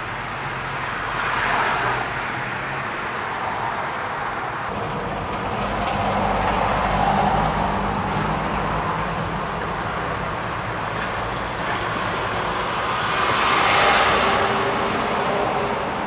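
Road noise from a moving car heard inside the cabin: a steady tyre-and-engine hum that swells louder three times, most strongly near the end.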